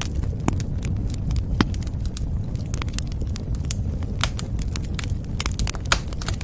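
Fire crackling in a fireplace: a steady low rumble of flames with frequent sharp pops and snaps, one louder snap near the end.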